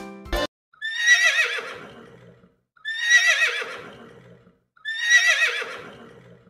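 A horse whinnying three times, about two seconds apart. The same wavering, high call is repeated each time and trails off.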